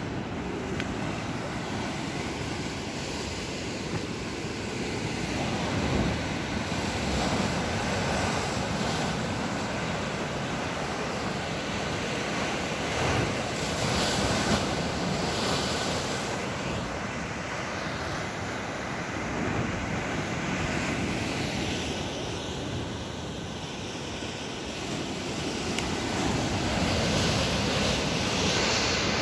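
Sea surf breaking and washing over rocks at the foot of a sea cliff, a continuous rush of churning water that swells and eases as waves come in, with wind rumbling on the microphone.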